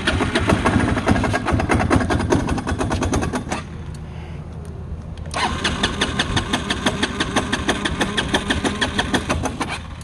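Feishen FA-D300 ATV engine running unevenly, with a rapid, regular ticking over the engine note. It drops quieter for about two seconds midway, then picks up again. The owner hears this as pinging from the engine at idle, which he guesses could be a crank bearing or piston rings.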